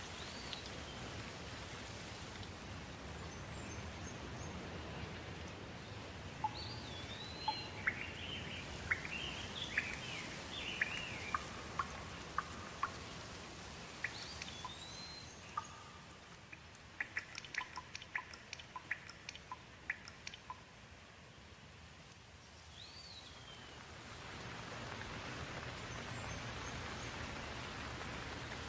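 Rainforest ambience: a steady background hiss with birds calling over it. A rising-and-falling whistle recurs every several seconds, a burst of chattering notes comes a few seconds in, and a run of quick, sharp pips follows in the middle.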